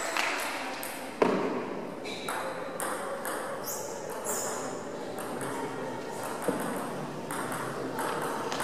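Table tennis ball clicking against paddle and table between points, with one sharp knock about a second in and a few lighter clicks later on.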